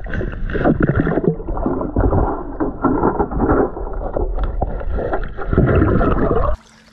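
Muffled sloshing and churning of water, with irregular knocks, as a hand-fisherman thrashes while grappling a catfish in a submerged hole. It cuts off suddenly near the end.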